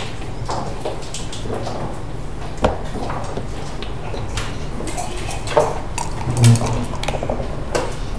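Backgammon checkers and dice on a hard board: a string of sharp clicks and clacks as checkers are set down and dice are rolled, with louder clacks about two and a half and five and a half seconds in and a duller knock about six and a half seconds in.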